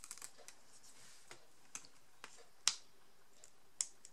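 Faint, scattered clicks and ticks of paper and card being handled as the backing paper is peeled off 3D foam tape, the loudest a sharp tick a little before three seconds in.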